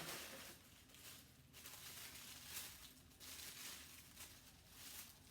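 Faint rustling of gift wrapping being handled and pulled at, in a few soft spells.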